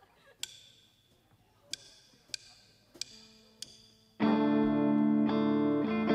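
A few sharp, separate percussive clicks, then about four seconds in a loud, distorted electric guitar chord comes in and rings on as the band starts the next song.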